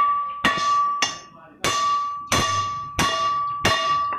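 Six hammer blows on a truck driveshaft's steel yoke, irregularly spaced, each ringing on with a clear metallic tone that fades before the next. They are knocking out a worn cross joint (universal joint).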